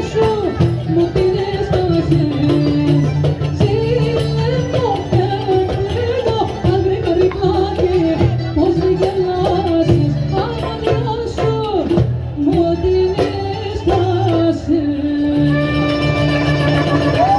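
Music with a wavering, ornamented melody over a steady low bass, with singing and tambourine-like percussion; near the end a long steady note is held.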